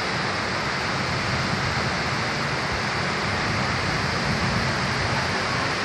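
Heavy rain pouring down, with muddy floodwater rushing past: a steady, even noise of water.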